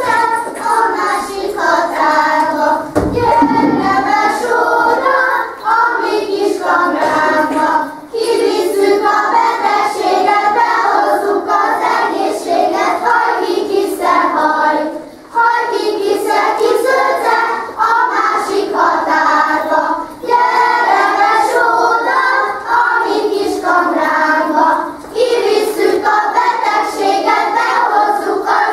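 A group of young children singing a Hungarian folk song of the kiszehajtás custom together, in short phrases with brief breaths between them.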